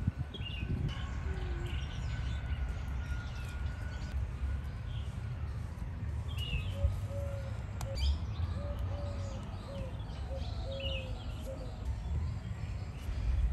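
Birds chirping in short, scattered calls, with a run of short, lower repeated notes through the middle, over a steady low rumble.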